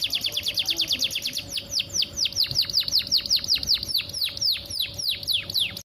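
Female canary chirping: a rapid run of high notes, each sweeping down in pitch, slowing from many a second to about three a second, then cutting off abruptly near the end. The calls are those of a hen in breeding condition calling to a male.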